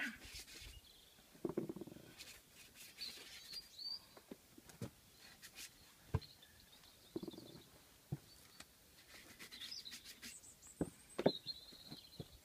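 Tyre lever clicking, knocking and scraping against a motorcycle alloy rim and tyre bead as the first side of the tyre is levered off. The sharp knocks come irregularly, with a couple of short scuffs of rubber. Faint bird chirps sound in the background.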